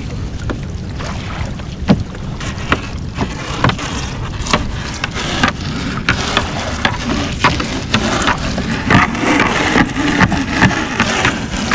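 Steady low rumble on a small fishing boat at sea, with many sharp clicks and knocks that come more often in the second half, as a crab gillnet is hauled and the crabs are picked out.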